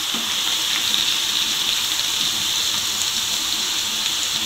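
Gram-flour-coated potato fries deep-frying in a pan of hot oil, giving a steady sizzling hiss.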